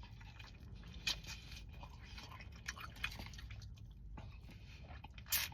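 A person chewing food, quietly, with a few soft clicks and a sharper click near the end.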